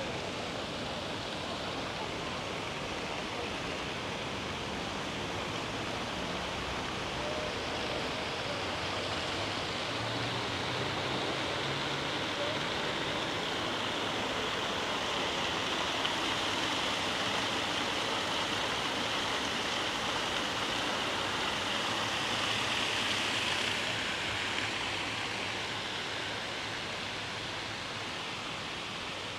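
Water splashing steadily from a public fountain. The hiss swells to its loudest through the middle and drops back near the end.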